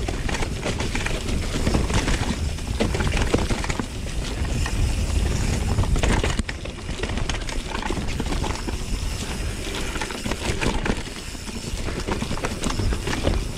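Mountain bike rolling fast down a rough dirt trail: tyres on loose dirt, roots and rocks, with a constant rattle and many sharp knocks from the bike, over a steady low rumble.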